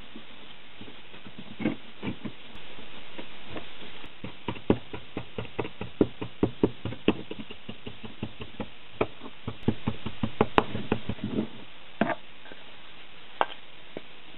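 Wooden knocks and quick taps on a split wooden core box as casting sand is packed into it with a wooden dowel: a few single knocks, then a fast irregular run of taps from about four to eleven seconds in, and one or two knocks near the end.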